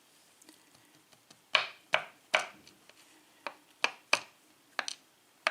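Sharp, irregular clicks of small metal parts from a dismantled euro cylinder lock being handled and set down on a hard surface, about nine in all, starting after a quiet first second and a half.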